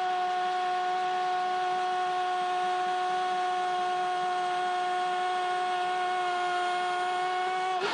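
Brazilian football TV commentator's long, held goal cry ("gooool") on a single steady pitch after a goal is scored, breaking off just at the end.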